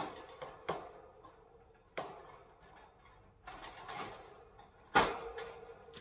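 Metal wire birdcage parts knocking together as the cage is put together: a series of sharp knocks, the loudest about five seconds in, with a short metallic ring after them.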